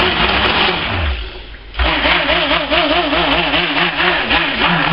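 Immersion (stick) blender running in a tub of cold-process soap batter, blending in pink colourant. It stops about a second in and is switched back on a moment later, its motor whine wavering in pitch as the head is worked through the batter.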